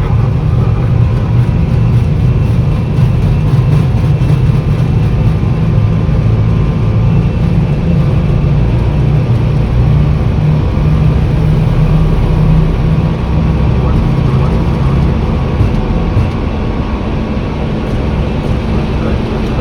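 Airbus A321 at takeoff thrust accelerating down the runway, heard from the cockpit: a loud, steady low rumble of engines and wheels on the runway. The rumble eases about two thirds of the way through as the aircraft rotates.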